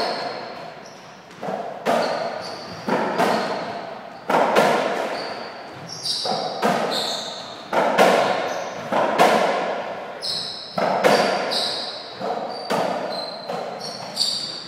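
A softraquet rally: the ball struck by rackets and rebounding off the court, sharp echoing hits about twice a second, with short high squeaks between some of the hits.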